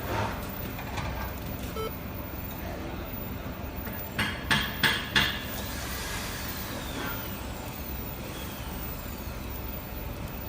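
Four quick, sharp knocks in about a second over a steady background noise.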